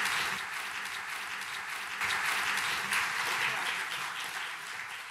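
Audience and panel applauding, many hands clapping steadily, thinning and fading toward the end.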